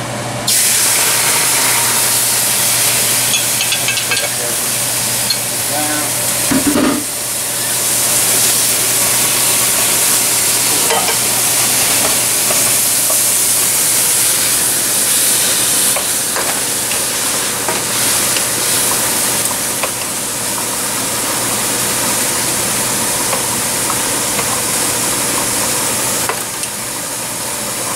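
Marinated meat sizzling in a hot pan as it is stirred: a loud, steady frying hiss that starts suddenly about half a second in and eases near the end.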